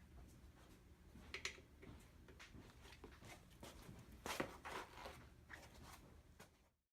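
Faint scrapes and clicks of an Allen wrench working on a bicycle's stem bolts, the loudest a short rustling scrape about four and a half seconds in. The sound cuts off abruptly near the end.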